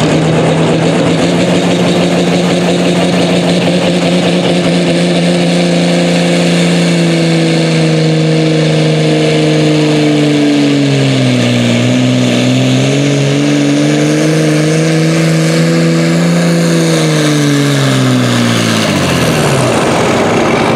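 Single-turbo 360-cubic-inch diesel hot stock pulling tractor at full throttle through a pull. Its engine note is steady, sags about eleven seconds in and recovers, then falls away over the last few seconds as the pull ends.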